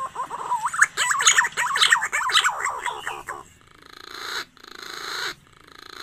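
Green pigeon (punai) call from a bird-lure recording: a run of quick, wavering fluty whistles lasting about three seconds, then three rising raspy swells.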